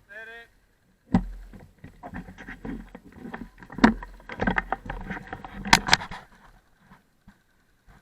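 Knocking, clicking and rustling over a low rumble, with a few sharp cracks near four and six seconds in: an airsoft player moving with gear.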